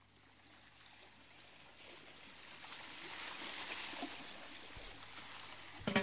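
A soft, even rushing noise fading in over the first few seconds and then holding steady, with a drumbeat cutting in at the very end.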